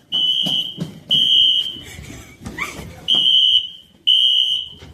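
School fire alarm sounding a loud, high electronic beep, repeating about once a second, with a longer pause midway: the three-beep evacuation pattern.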